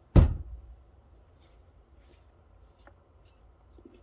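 A single thump about a quarter of a second in as the vacuum's plastic fan housing is set down on the table. It is followed by a few faint clicks of handling.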